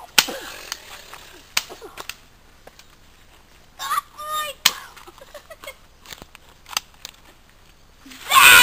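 Toy cap gun firing a handful of sharp, scattered cracks, two close together near the start and the others spaced a second or more apart. A short voiced cry comes about four seconds in, and loud voices near the end.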